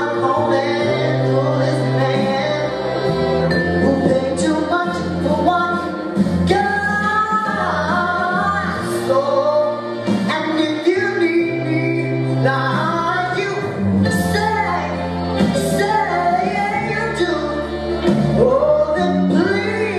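Singing with backing music: a solo voice sings a melody over held low notes.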